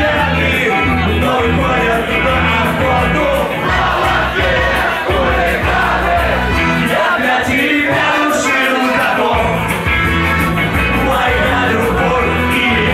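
A rock band playing live and loud with a singer.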